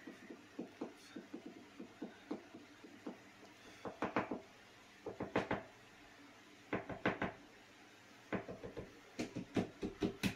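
Small plastic clicks and taps from fingers handling and pressing a small black plastic phone part. They come singly and in quick bunches of rapid clicks.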